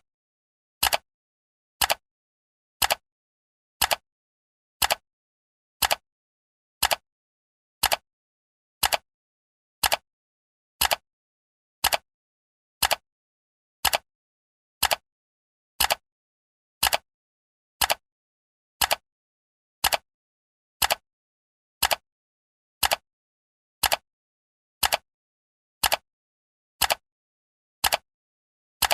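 Clock ticking: one short, sharp tick every second, evenly spaced, with silence between the ticks.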